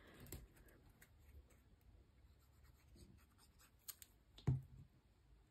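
Faint rustle of cardstock and paper being handled on a desk. About four seconds in come a couple of light clicks and then a soft knock.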